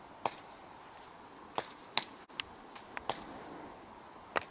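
Scattered single airsoft shots: about eight sharp, separate cracks spread over four seconds, the loudest about two seconds in.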